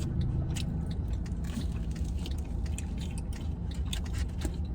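A person chewing a bite of brick-oven pizza close to the microphone, with irregular small crunching clicks, over a steady low rumble.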